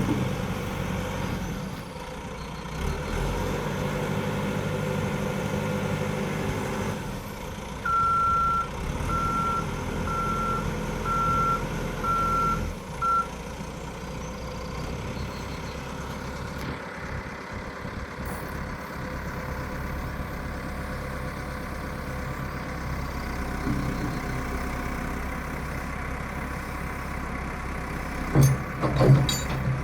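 CAT 416E backhoe loader's diesel engine running, with its reversing alarm beeping six times, about once a second, about a third of the way in. A few sharp knocks near the end.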